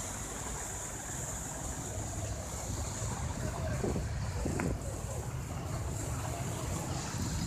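Steady rushing of a flooded stream's fast, muddy water, with a low rumble underneath.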